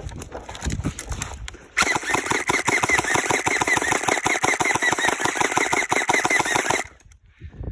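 Gel blaster firing one long full-auto burst: a rapid, even rattle of shots. It starts about two seconds in and cuts off suddenly about five seconds later.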